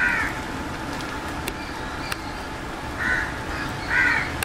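A crow cawing: three short calls, one at the start and two close together near the end.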